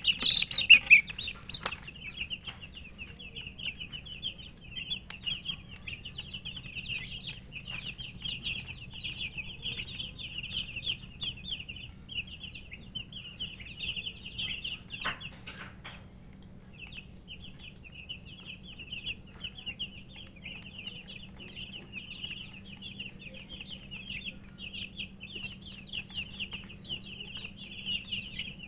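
A group of chicken chicks peeping continuously, many short high chirps overlapping, thinning briefly about sixteen seconds in. A few sharp clicks sound among the chirps, one about fifteen seconds in.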